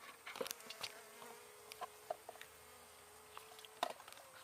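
Honey bees buzzing in a faint, steady hum, with scattered light clicks and taps.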